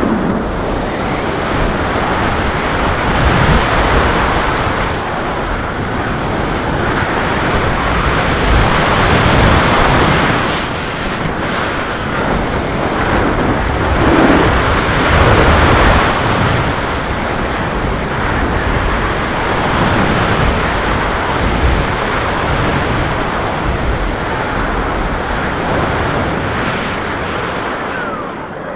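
Wind rushing over the onboard camera microphone of a Skywalker 1900 FPV plane in flight: a steady, loud rush of noise that swells and eases every few seconds.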